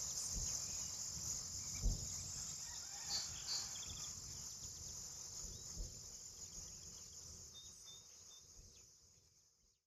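Steady chorus of crickets and other insects, with a few short bird chirps about three to four seconds in and some low thumps, the strongest about two seconds in. The sound fades out to silence near the end.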